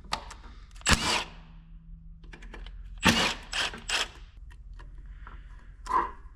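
Clicks and knocks of hand tools on the workbench as a T27 Torx bit is picked up and put to the screws holding the 4L80E valve body's shift solenoids. The loudest knocks come about one and three seconds in, with smaller clicks between and one more near the end.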